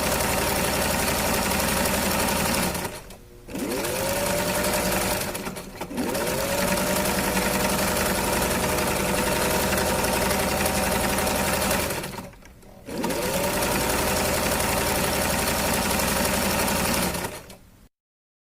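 Sewing machine stitching in four runs with short stops between them. At each start its motor whine rises as it comes up to speed, then runs steady, and it cuts off near the end.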